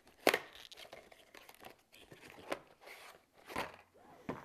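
A small cardboard product box being opened by hand: the sleeve and inner tray sliding apart with rustling of card and paper, and several sharp snaps and knocks of cardboard, the loudest about a third of a second in.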